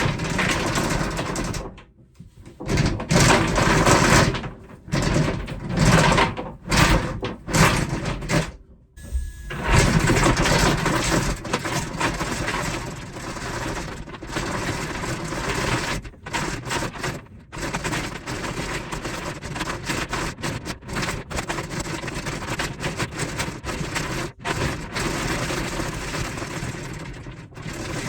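Handheld power tool running in bursts with short stops, drilling or cutting a hole through the boat's chain-locker panel.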